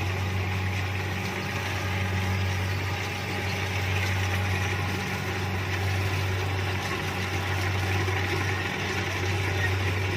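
Kubota DC-70 rice combine harvester running steadily: a constant low diesel engine drone with a rushing mechanical noise above it.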